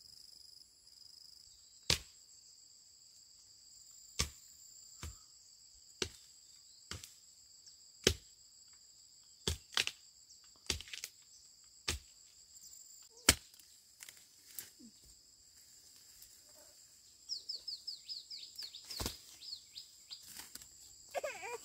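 Sharp single chopping strikes, irregular, about one every second or two, over a steady high drone of crickets or other insects. Near the end comes a quick rattle of clicks.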